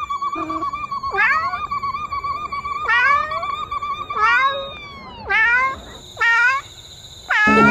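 Domestic cat meowing over and over, about six meows roughly a second apart, each rising and then falling in pitch. A steady warbling tone runs under the first half and stops a little past the middle.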